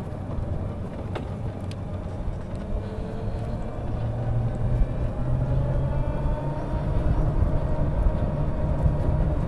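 APtrikes125 mini jeep driving along, its drive note getting louder and rising in pitch as it picks up speed, heard from the open driver's seat.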